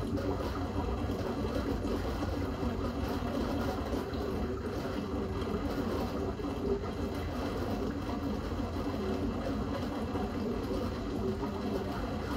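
Steady bubbling and water churn from an aquarium's air stone and submersible pump, over a low, even hum.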